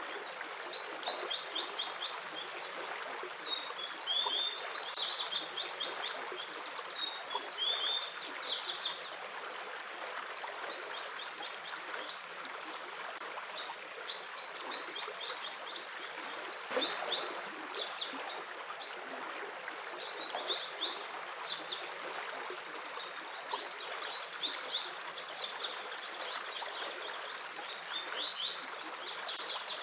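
Running water flowing steadily, with small birds chirping over it in many quick, high trills.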